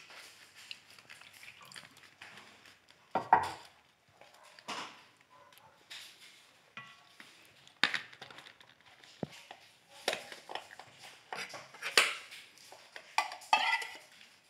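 Evaporated milk and cream poured into a stainless steel bowl, with scattered clinks and knocks as the can and cream cartons touch the bowl. Sharper knocks come about three, eight and twelve seconds in.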